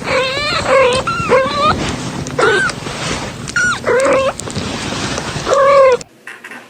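A dog whining and yipping in a series of about six short calls that waver up and down in pitch. The calls stop suddenly about six seconds in.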